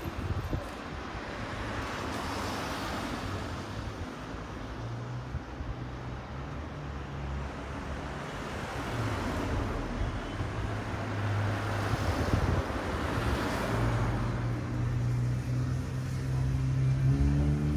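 Street traffic: several cars passing one after another, each swelling and fading, with a low engine hum growing louder near the end.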